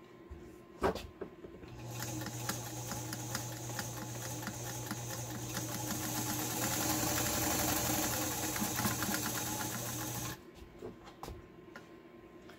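White 764 sewing machine running, stitching a wide zigzag through denim: a steady motor hum under rapid needle strokes, growing louder over several seconds and then stopping abruptly about ten seconds in. A single click comes just before it starts, and a few light clicks follow once it stops.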